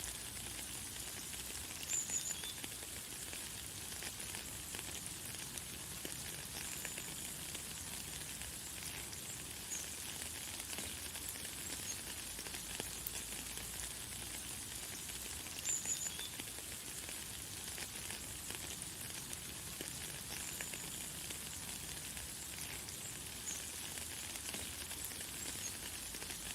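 Light, fine rain falling steadily, a soft hiss full of tiny drop ticks. Brief high bird chirps come now and then, the clearest about two seconds in and again about sixteen seconds in.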